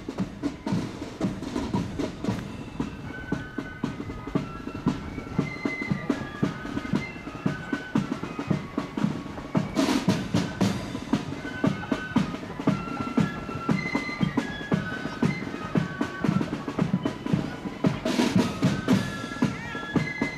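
Corps of drums, a marching flute band, playing a tune: flutes carry a stepping melody over side drums and a bass drum beating time. There are two loud crashes, about halfway through and near the end.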